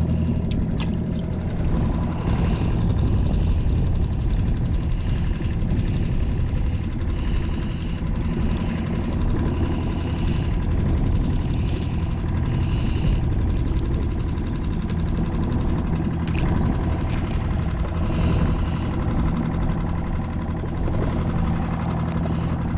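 Small boat's outboard motor running steadily at low, slow-trolling speed in gear, a constant low hum.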